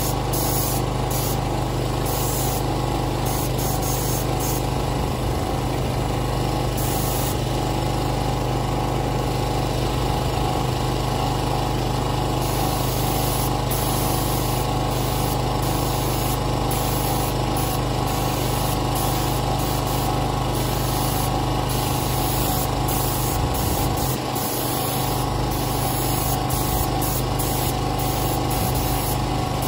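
Compressed-air paint spray gun hissing in repeated bursts as it is triggered on and off, over the steady hum of a small engine running throughout.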